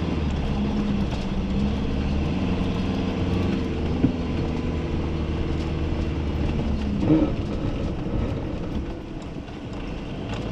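Ambulance rolling slowly over a snowy, icy street, heard from inside the cab: steady engine and tyre noise, with a sharp click about four seconds in and a short, louder noise about seven seconds in.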